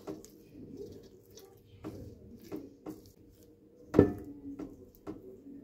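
Pink silicone spatula stirring and scraping thick semi-frozen cream around a stainless steel mixing bowl: a string of soft, irregular squishy scrapes, with one louder knock against the bowl about four seconds in.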